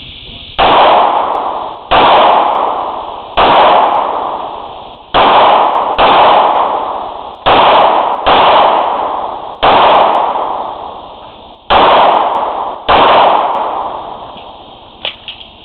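About ten semi-automatic pistol shots fired at an uneven pace, one to two seconds apart, each loud crack followed by a long echo. A couple of small metallic clicks come near the end, after the last shot.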